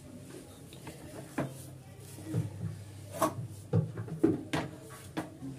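Wooden spatula scraping and knocking against an aluminium kadhai as thick, stiff chana dal halwa is pushed out of it onto a plate: several separate knocks with scraping between them.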